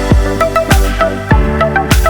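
Electronic background music with a heavy kick drum about every 0.6 seconds and a short repeating synth melody.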